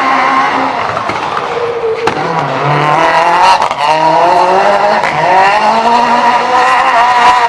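Citroën Saxo S1600 rally car's four-cylinder engine running at high revs. Its pitch drops briefly, then climbs steadily for several seconds as it accelerates, with a few sharp exhaust bangs along the way.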